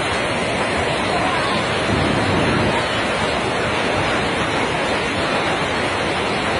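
Steady roar of a huge torrent of brown floodwater crashing and throwing up spray, an unbroken rushing wash of noise.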